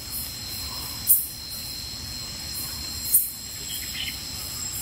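Night insect chorus: crickets trilling steadily on several high pitches, with a louder, very high, short chirp twice, about two seconds apart.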